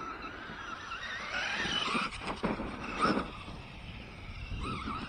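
Electric RC truck's motor whining, rising and falling in pitch as it speeds up and slows, with a few sharp knocks between about two and three seconds in.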